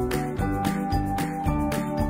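Background music: held notes over a steady beat.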